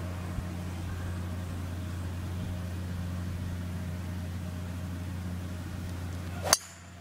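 Golf driver striking a ball off the tee near the end: one sharp crack, the loudest sound, over a steady low hum that drops away just after the strike.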